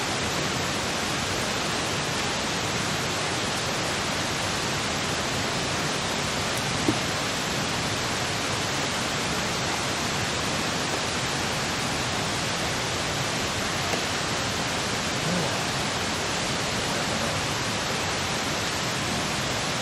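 A steady, even rushing noise, like running water, holds at one level throughout, with a few faint knocks about 7 and 14 seconds in.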